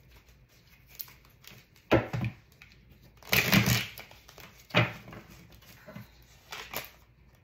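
Tarot deck being shuffled by hand: several short bursts of card rustling and slapping, the longest about three and a half seconds in.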